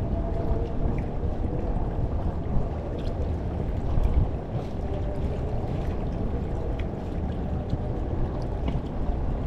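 Steady low rumble of wind on the microphone over water moving around an inflatable boat, with a few faint small ticks.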